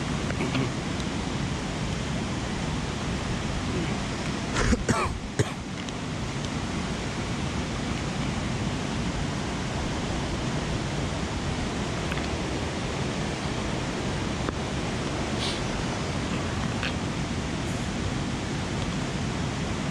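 Mountain creek water rushing steadily, with a few sharp knocks about five seconds in.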